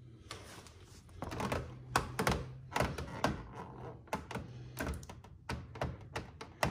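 Irregular clicks, taps and knocks of a carbon fiber rear diffuser being handled and pressed into place against a car's rear bumper during fitting.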